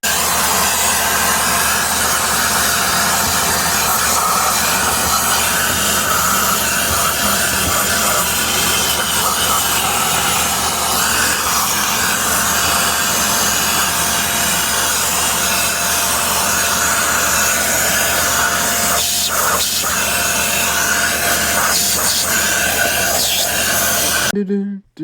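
A Bissell Zing canister vacuum cleaner running with a steady, loud rush of air and motor noise. It starts abruptly and cuts off shortly before the end.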